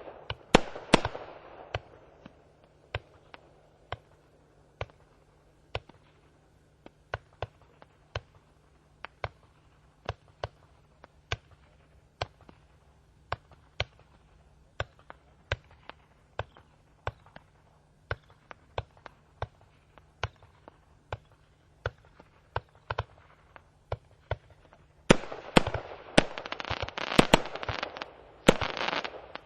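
Firework battery (Festival II Box) firing: a quick cluster of bangs, then single shots at about one to two a second for most of the stretch. Near the end it breaks into a dense, rapid barrage of bangs and crackle.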